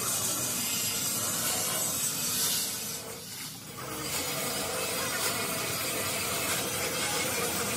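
Steady rasping noise of metal being worked on a steel excavator bucket, easing off briefly about three seconds in.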